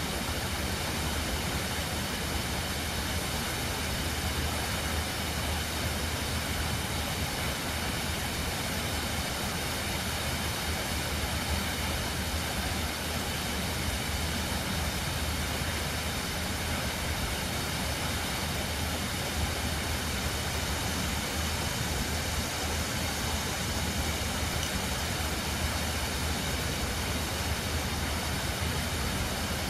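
Steady rushing of Tempesta Falls, whitewater pouring over rock ledges in a gorge.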